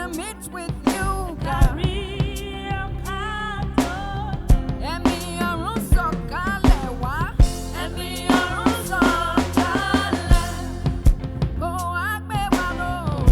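Gospel worship music: a singer's wordless vocal runs over a band with a drum kit keeping a steady beat.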